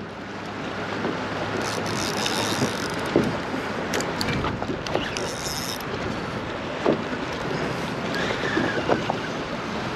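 Wind on the microphone and water washing against a boat's hull, with a few light clicks and knocks and twice a brief higher hiss.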